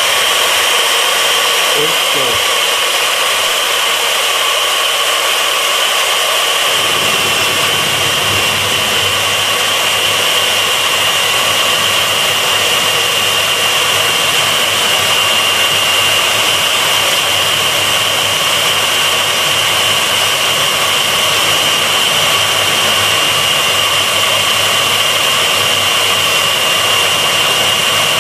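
Fein KBM 50 Auto magnetic core drill running in second gear, auto-feeding a 20 mm annular cutter into 12 mm S355 steel plate, with a steady high-pitched motor whine. About seven seconds in, a lower, rougher noise joins and holds to the end.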